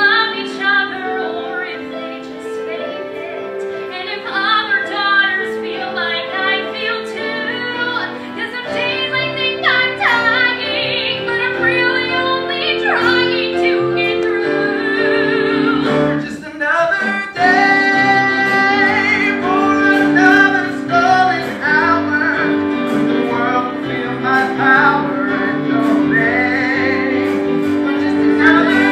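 A musical theatre number: women singing with instrumental accompaniment, with a short break a little past the middle before the music resumes.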